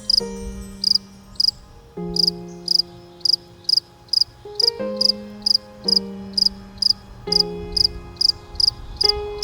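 A cricket chirps in a steady rhythm, about two or three chirps a second, over background music of slowly changing held chords.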